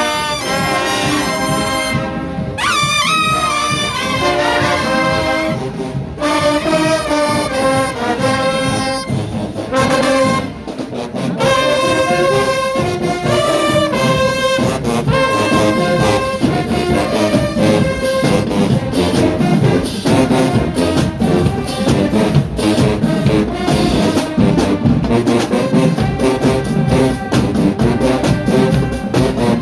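College marching band playing: a loud brass section of trumpets and trombones carrying a melody in held and moving notes, with drums keeping the beat.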